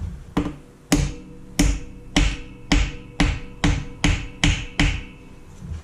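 Ball-peen hammer striking the aluminium engine block of a Ford 5.0 Coyote V8 about ten times in quick succession, each blow ringing briefly, cracking off a section of the block casting.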